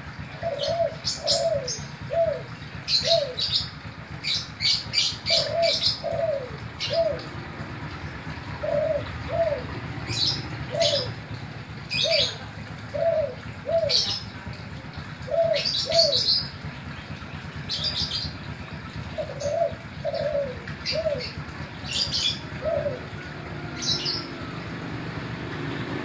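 Spotted dove cooing: short falling coos in quick groups of two or three, repeated every second or two, with sharp high chirps in between over a steady low hum.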